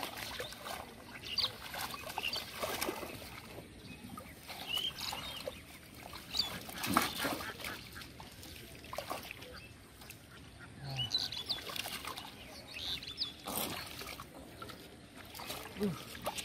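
Irregular splashing and slapping in shallow muddy water as a large catfish is grabbed by hand and thrashes, with a few louder splashes.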